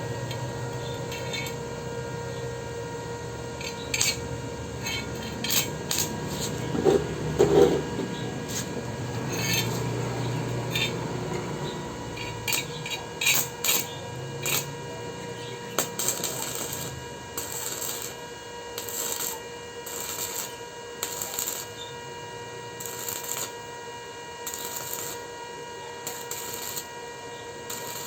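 Light metallic clinks and scraping from handling steel and welding gear, scattered at first, then in short hissy bursts about once a second, over a steady electrical hum.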